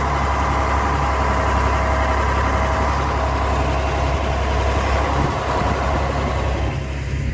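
John Deere 4030 tractor's six-cylinder diesel engine running steadily with a deep hum; a higher whine over it eases off near the end.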